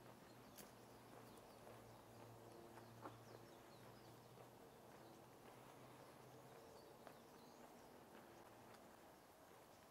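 Near silence: faint outdoor ambience with a low steady hum and a few soft, scattered clicks.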